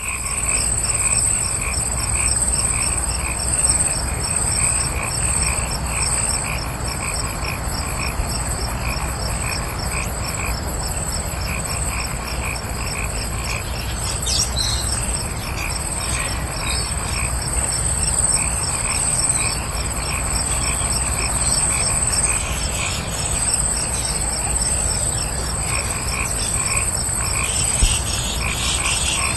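A chorus of frogs croaking in fast, evenly repeated calls over a steady high-pitched insect trill, running on without a break.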